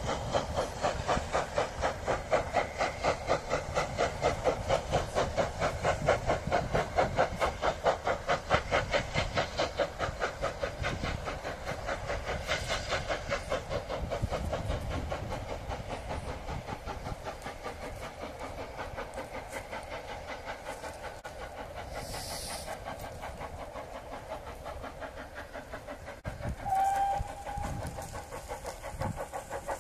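Steam locomotive, the Great Western pannier tank No. 6412, working a train, its exhaust chuffing in a rapid even beat that fades as the train draws away. A brief whistle note sounds near the end.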